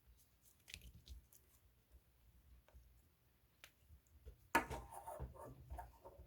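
Hands playing with macaron slime: faint scattered clicks at first, then about four and a half seconds in a louder stretch of sticky crackling as the slime is pressed and squished.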